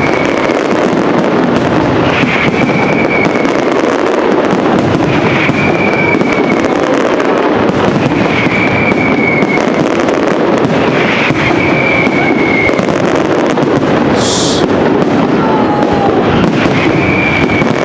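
Aerial fireworks display in full barrage: a continuous, dense run of bangs and crackles from shells bursting overhead, with a short high whistle recurring about every three seconds.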